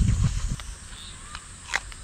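Steady high insect drone (cicadas) with a few light clicks, the sharpest about three-quarters of the way through, after a low rumble in the first half second.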